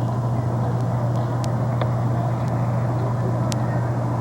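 Steady in-cabin drone of a car being driven: a constant low engine-and-road hum with a few faint clicks.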